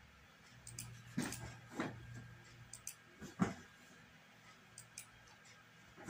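Online chess move sounds: three short clicks, about a second in, just after, and near the middle, as knight takes knight, the queen recaptures, and a queen moves.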